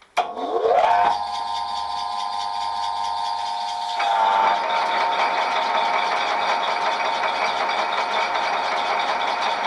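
Vintage South Bend 14-1/2" lathe switched on: its original plain-bearing electric motor spins up with a rising whine over about a second, then the lathe runs steadily with a whine and the belt and gear clunking and rattling. About four seconds in, the running gets louder and busier as a power feed is engaged.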